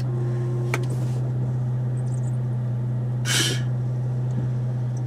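Steady low hum of a Dodge Charger running at idle, heard from inside the cabin, with a short click about a second in and a brief hiss a little past the middle.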